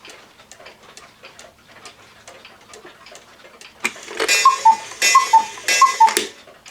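Small one-day cuckoo clock ticking steadily, then its rack-and-snail strike trips with a click and the cuckoo calls three times, each a high-then-lower two-note call from the bellows pipes.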